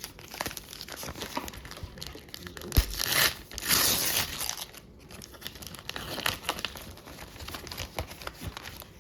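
A hockey card pack wrapper being crinkled and torn open, with a sharp knock about three seconds in and the loudest crinkling just after it.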